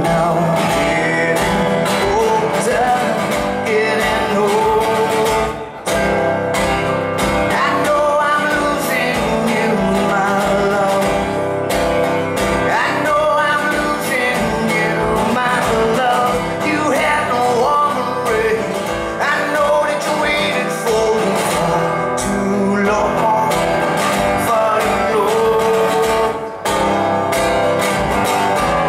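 A man singing to a strummed acoustic guitar in a live performance.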